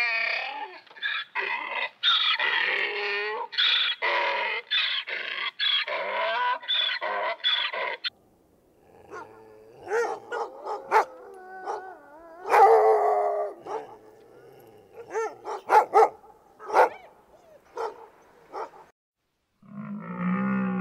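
A donkey braying in a long run of rapid, repeated calls. About eight seconds in it gives way to a Shiba Inu dog whining, with short sharp yelps and barks. Near the end a deeper animal call begins.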